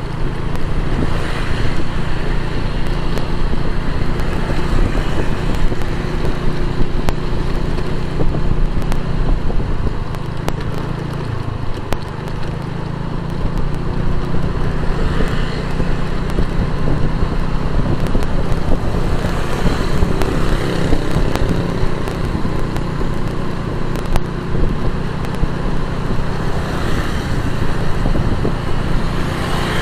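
Motorcycle engine running steadily while riding, with road and wind noise and surrounding traffic. The engine eases off briefly about a third of the way through, then picks up again, and other vehicles swell past a few times.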